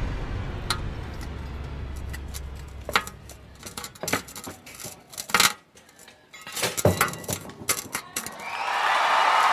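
A low music drone fades out. Then comes a series of sharp metallic clinks and clanks from the metal gear-and-spiked-rod contraption on the escape box. Near the end, a crowd breaks into loud cheering.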